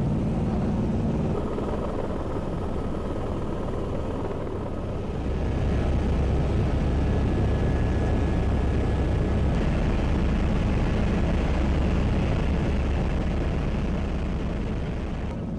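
Steady low rumbling drone with faint steady hums above it, growing louder and deeper about five seconds in.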